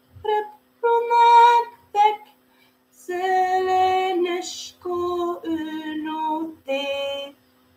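A woman singing a children's song in Scottish Gaelic, unaccompanied, in held phrases with short breaks between them. A faint steady electrical hum lies underneath.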